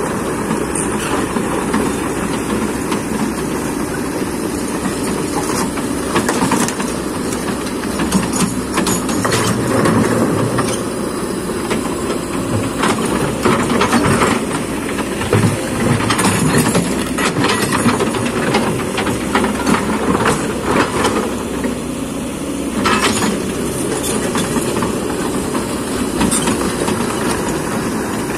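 Kobelco hydraulic excavator working: its diesel engine runs steadily under load while metal clanks and knocks come again and again from the machine and its bucket working mud and stone.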